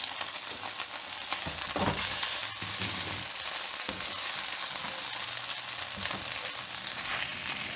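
Shredded pork frying in hot oil in a pan, sizzling steadily.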